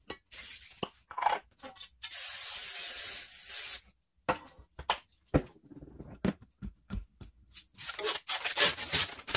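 Aerosol olive oil cooking spray hissing steadily into a metal cake pan for about two seconds, with light handling knocks before and after. Near the end, the paper wrapper is peeled and torn off a cardboard tube of refrigerated cinnamon roll dough.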